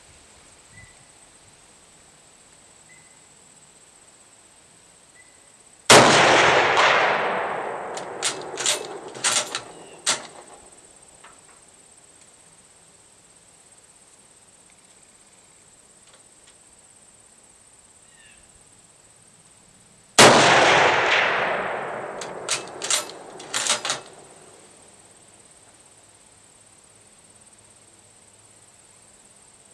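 Two shots from a Mauser K98 bolt-action rifle firing full-power 8mm Mauser surplus rounds, about fourteen seconds apart, each a sharp crack with a long fading echo. A few seconds after each shot comes a quick run of four or five sharp metallic clicks.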